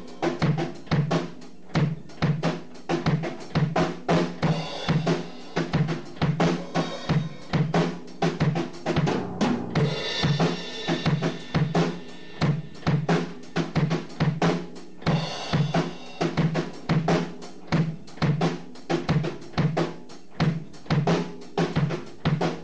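Drum kit playing a steady beat on bass drum and snare, as a music track.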